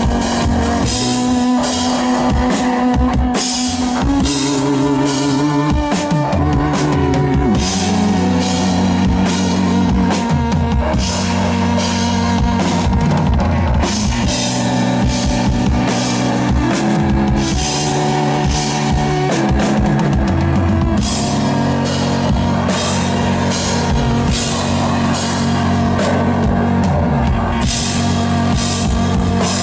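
Live rock-style music from a drum kit and a synthesizer: a steady, loud drum beat with cymbals over a sustained low synth line that steps from note to note every second or two.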